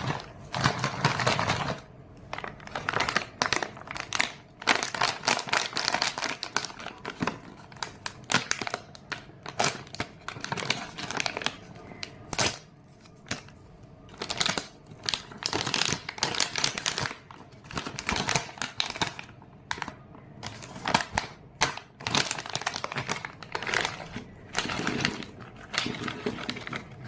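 Hershey's Kisses candy wrappers crinkling and crackling in irregular bursts as the candies are unwrapped by hand, with short pauses between handfuls.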